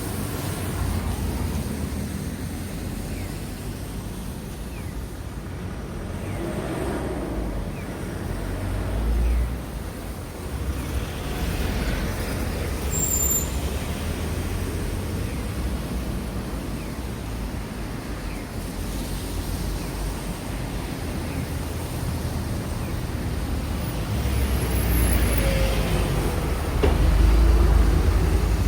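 Road traffic at a crossroads: vehicles running and passing in a continuous low rumble, with louder passes about nine seconds in and near the end.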